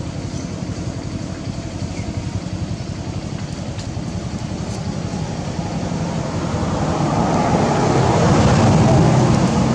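Steady low outdoor rumble, like distant traffic, that swells louder over the last few seconds and then eases slightly.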